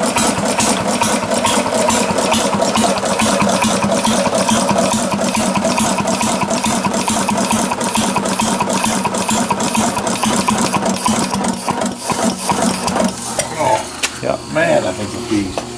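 1937 Tate compound-compression two-stroke engine running with a fast, even mechanical beat. The beat fades out about twelve seconds in, leaving a few irregular knocks.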